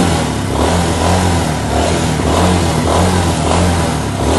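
Royal Enfield Himalayan's single-cylinder engine running with a steady, evenly pulsing beat and no rattle from the front end: the headlight's missing rubber mount has been refitted, curing the front-side noise.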